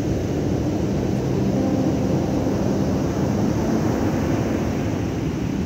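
Waves breaking on a beach with wind buffeting the microphone: a steady, loud rush of surf noise.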